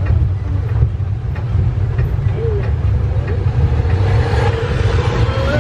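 Road vehicle driving, heard from inside the cabin: a steady low rumble, with a faint whine that rises slightly near the end.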